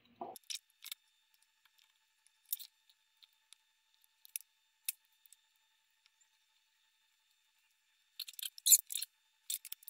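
Small, sharp clicks and rustles of wires and a small circuit board being handled, scattered and sparse at first, then a close run of them near the end.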